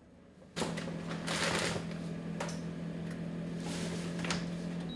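Avalon Bay AF25BSS stainless steel air fryer running: its fan motor hums steadily while frozen tater tots sizzle and crackle in the basket. The hum starts about half a second in and cuts off right at the end as the timer runs out.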